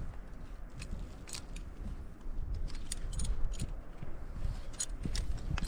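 Climbing hardware clinking: a scatter of light metallic clicks and jingles, as from carabiners and quickdraws on a harness, over a low rumble.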